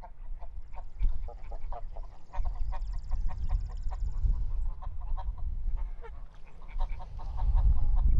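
A small flock of domestic geese honking and cackling in quick runs of short calls, over a steady low rumble.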